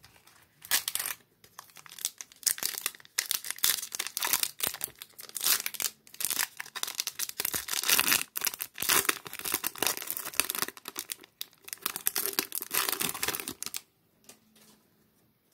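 Foil wrapper of a 2013 Topps Mini baseball card pack being torn open and crinkled by hand: a dense, irregular crackle that stops shortly before the end.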